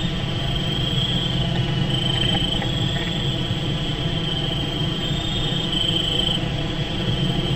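Insects trilling in a steady high-pitched chorus, over a constant low rumble.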